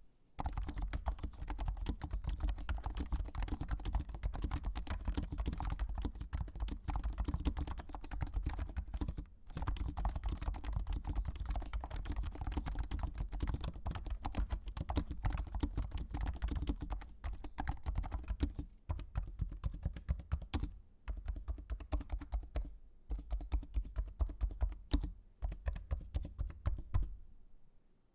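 Continuous fast typing on a CM Storm Novatouch TKL's Topre-style capacitive rubber-dome switches, fitted with silencing rings and granite PBT keycaps: a dense run of muted, thocky keystrokes. There are short pauses about a third of the way in and twice past the middle.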